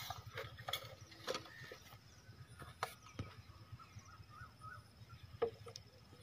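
Irregular sharp clicks and knocks, the loudest about three seconds in and again near the end, over a faint steady high tone.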